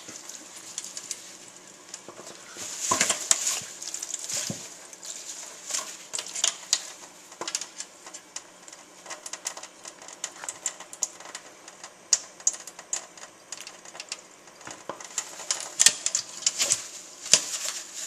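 Kitchen faucet running onto a hyacinth macaw bathing in a stainless steel sink, with irregular splashing and pattering as she ducks under the stream and flaps her wet wings. The splashing is busiest about three seconds in and again near the end.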